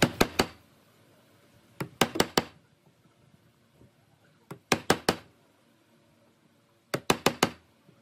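Wood chisel being struck in short groups of three or four quick, sharp blows, a group about every two and a half seconds, as it cuts a hexagonal recess for a nut into a pine board.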